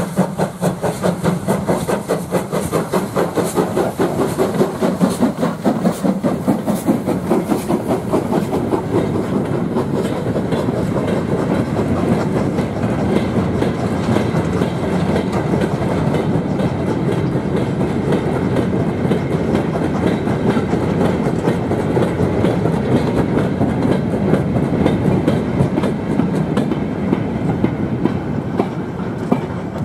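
An LMS Ivatt Class 2MT 2-6-0 steam locomotive passes close by with fast, even exhaust beats. Its train of steel mineral wagons follows and rattles past with a steady clickety-clack of wheels over the rail joints, easing near the end as the last wagons clear.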